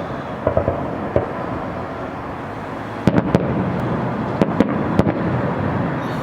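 Fireworks salute: sharp bangs of shells bursting, a few close together about half a second to a second in, then a quicker run of about six between three and five seconds in, over a steady background rumble.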